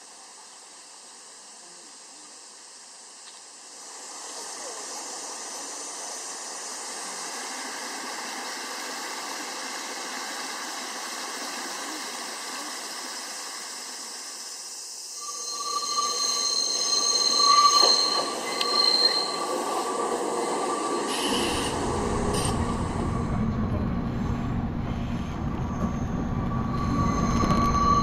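Rail car running on the track: a steady running noise that grows louder a few seconds in, with high-pitched wheel squeal setting in about halfway through and a heavier low rumble joining near the end.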